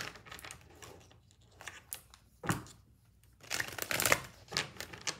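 A tarot deck being shuffled by hand: short snaps and riffles of the cards, with the loudest flurry about four seconds in.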